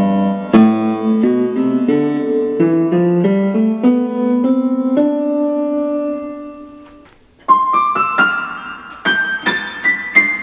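Casio CTK-651 keyboard's grand piano voice, played across the keyboard's range: a string of single notes in the low and middle register, the last one held and fading away. After a short pause, a run of notes climbs step by step into the treble.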